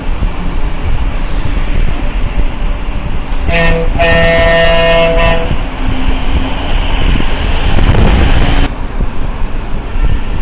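Road traffic with a steady rumble and wind on the microphone. A vehicle horn honks about three and a half seconds in and lasts about two seconds. A louder rush of passing-vehicle noise then builds and cuts off suddenly near the end.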